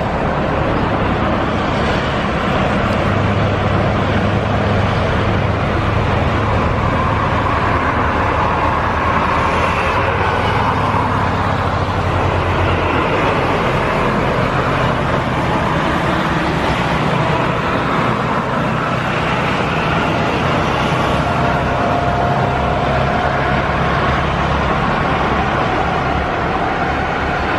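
Boeing 737-800's two CFM56 turbofan engines at takeoff thrust, a loud, steady noise as the jet rolls down the runway and lifts off.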